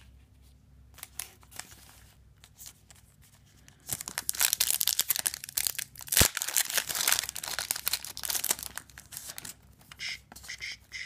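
Foil Yu-Gi-Oh booster pack wrapper being torn open and crinkled, a dense crackling that starts about four seconds in and lasts several seconds, with one sharp click midway.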